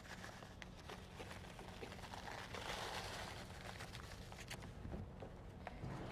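Dry stuffing mix shaken from its bag over a casserole: a faint rustle and patter of crumbs, swelling in the middle, with a few light ticks and the crinkle of the bag.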